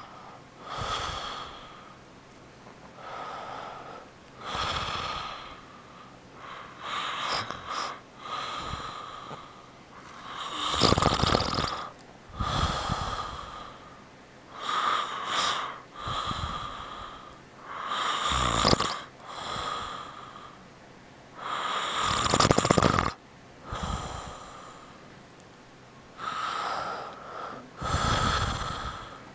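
A man snoring in his sleep, one snore with each breath every second or two. Several snores are much louder than the rest, about eleven seconds in and again around eighteen and twenty-two seconds.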